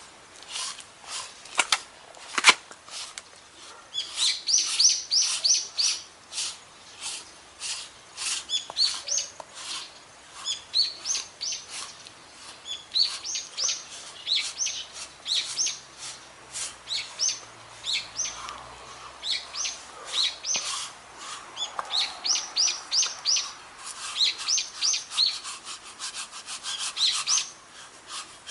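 A sticky lint roller rolled in repeated strokes over a Shiba Inu's fur, each stroke giving a quick run of high squeaks and crackles as the adhesive sheet peels off the coat. One sharp click about two and a half seconds in.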